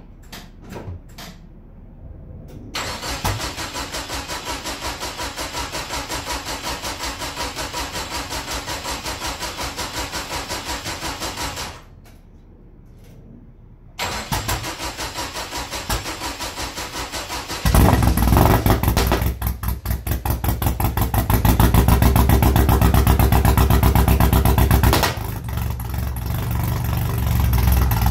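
Cold start of a 1968 Datsun Roadster engine through a straight-pipe exhaust. After a few clicks the starter cranks in an even rhythm for about nine seconds, pauses, then cranks again until the engine catches about 18 seconds in. It runs loud with throttle, and is loudest a few seconds later before settling lower near the end.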